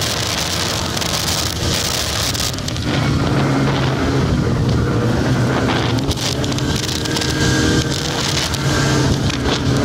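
Snowmobile engine running steadily while under way along a snow trail, heard from the rider's seat.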